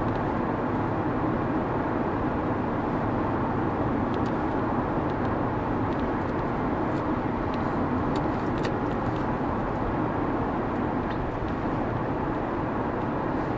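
Steady in-cabin road and engine noise of a Ford Panther-platform sedan cruising at about 40 mph: a low tyre rumble and the engine at light load, with no change in pitch.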